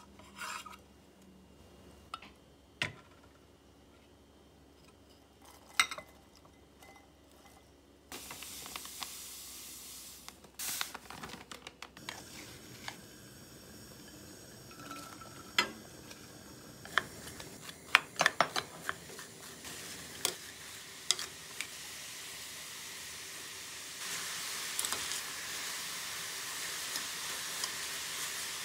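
Kitchen clicks and knocks, then a steady hiss that comes in suddenly about a third of the way through. Near the end, diced apples and sugar sizzle in a saucepan as a spatula stirs them, the start of an apple-pie filling.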